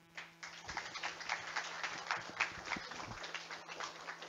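A small audience clapping: a dense patter of handclaps that starts just after the opening and begins to thin out near the end.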